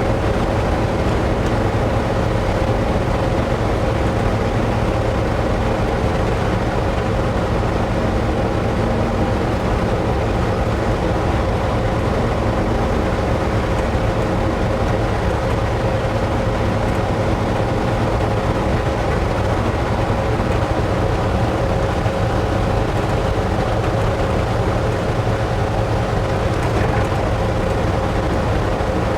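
Ford F600 truck driving at a steady cruising speed: a constant engine drone with road noise, holding one unchanging pitch.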